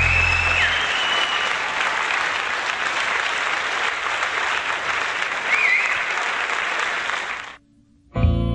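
Audience applause with a couple of short whistles, over a low chord that dies away in the first second. The applause cuts off abruptly near the end, and a guitar starts the next tune just after.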